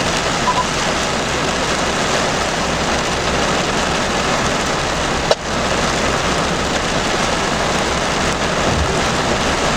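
Heavy rain falling steadily in a thunderstorm, an even hiss, with a single sharp click about five seconds in.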